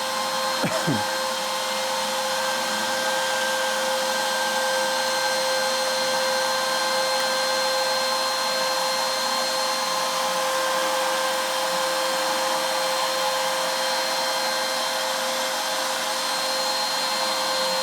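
CNC router spindle running steadily with a constant whine while a 1/16-inch ball-nose bit makes the slow finishing pass in walnut.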